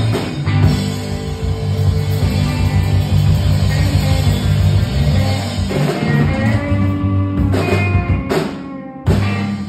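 Live rock band playing without vocals: electric guitars over a drum kit, with sharp loud hits near the end.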